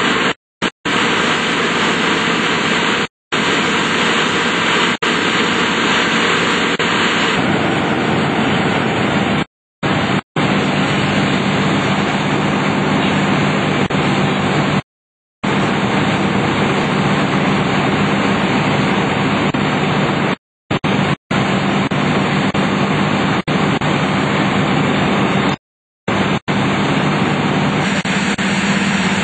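Fire engine running steadily under a constant loud rushing noise, as it pumps water to the hose lines. A low engine hum comes up about seven seconds in, and the sound cuts out completely for a moment several times.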